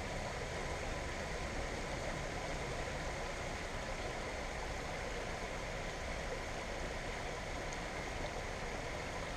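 Shallow, rocky stream running steadily over stones: an even rushing of water with no distinct splashes.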